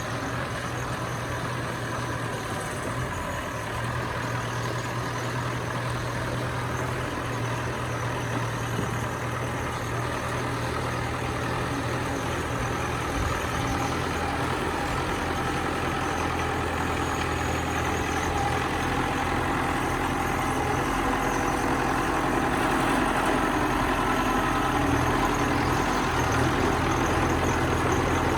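Bulldozer's diesel engine running steadily, a continuous low drone that grows somewhat louder over the last third.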